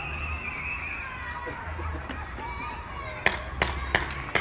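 Paintball markers firing: about four sharp pops in the last second or so, roughly three a second.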